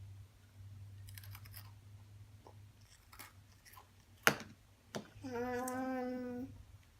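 Small scattered clicks and crunches of dry cereal being handled and eaten, with one sharp click about four seconds in. Near the end, a voice holds one steady hum for just over a second.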